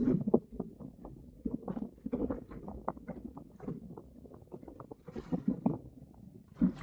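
Water slapping and gurgling against a 1965 Sunfish sailboat's hull as it sails through light chop, in irregular splashes and knocks, with a couple of brief hissing splashes about five seconds in and near the end.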